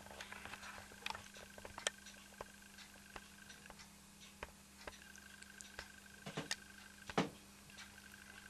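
Mamod toy showman's engine running on compressed air: a steady low hum under scattered light clicks and ticks, with a louder knock about seven seconds in.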